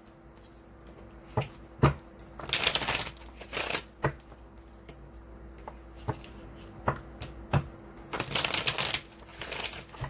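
A deck of tarot cards being shuffled by hand: several short bursts of riffling and rustling, with sharp single taps between them as the cards are knocked together.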